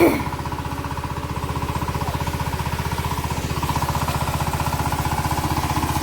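Small engine of a paddy harvesting machine running steadily, with a fast, even thumping beat. A brief sharp sound comes right at the start.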